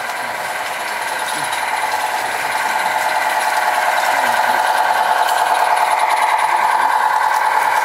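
16mm-scale garden railway locomotive hauling a train of log wagons past at close range: a steady buzzing whine that grows louder as the train nears.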